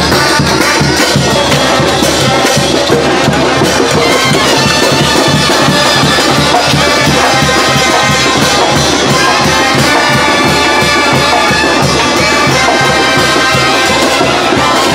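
Mexican banda (brass band) playing live: brass over drums with a steady beat.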